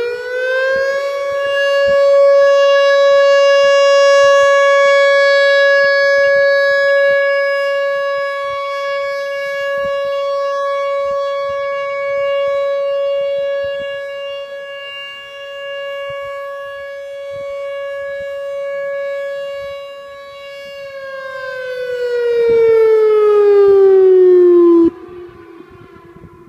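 Outdoor tornado warning siren sounding. It winds up to a steady wail within the first second and holds one pitch for about twenty seconds, swelling and fading in loudness. It then winds down in pitch and drops away sharply near the end.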